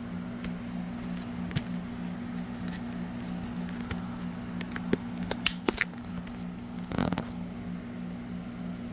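Scattered light clicks and knocks from handling a pistol fitted with a polymer scope mount and charging handle: a cluster of sharp clicks about halfway through and a brief rustle near the end, over a steady low hum.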